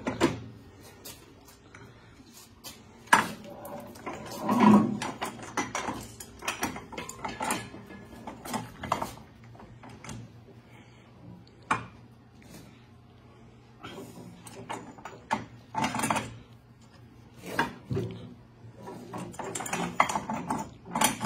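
Scattered metal clicks and knocks of hand tools working on the track's idler wheel and tensioner bolt, with a few indistinct voices.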